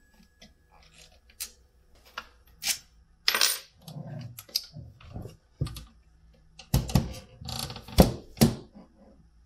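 Plastic housing of an EV wall charger being handled and turned over: a string of clicks and knocks, the loudest near the end as the unit is set down on the wooden workbench.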